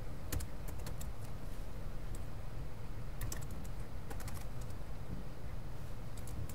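Computer keyboard typing: a web address keyed in a few short runs of keystrokes, over a steady low hum.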